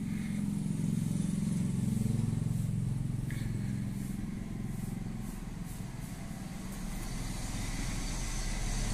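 Steady low electrical hum from the PA mixer setup, a drone of several evenly spaced low tones. The presenter puts it down to the system running on an inverter during a power cut. It is a little louder over the first few seconds.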